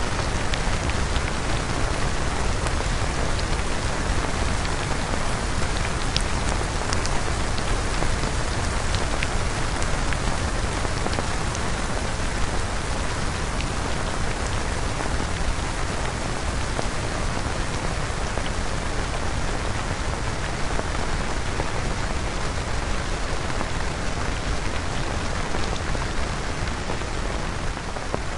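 Synthesized rain: a steady, dense hiss of rainfall with scattered individual drop ticks.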